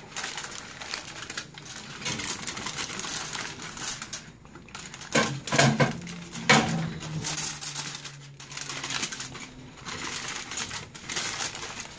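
Aluminium foil crinkling and crackling as hands fold and crimp it tightly around a whole fish, in irregular runs of crackles with short pauses.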